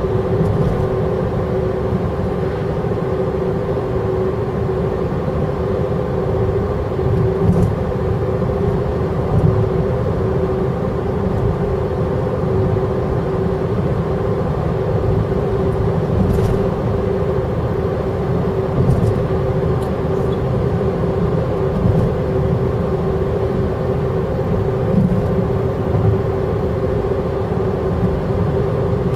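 Car driving at a steady speed, heard from inside: a steady road and tyre rumble with an even drone, and a few light knocks from bumps in the road.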